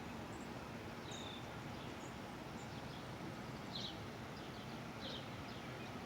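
Birds chirping faintly, a few short high calls scattered over several seconds, over a steady outdoor background hiss.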